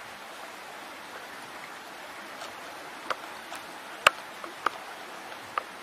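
Steady hiss of shallow running water, with a few sharp clicks or taps on top, the loudest about four seconds in.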